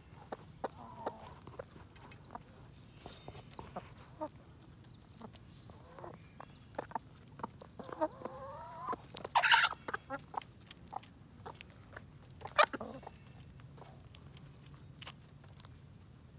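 Backyard chickens clucking close by, with a run of clucks about eight seconds in. Scattered sharp ticks and taps run throughout. Two short, loud, sharp sounds come about nine and a half and twelve and a half seconds in.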